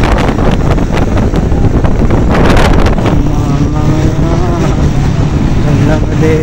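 Steady road and engine noise of a moving vehicle with wind buffeting the microphone in gusts, loudest about two and a half seconds in.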